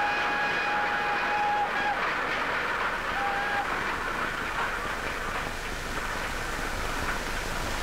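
Steam train pulling away. Its whistle holds a long note that stops about two seconds in, then gives a short blast a second later, over the steady noise of the moving train.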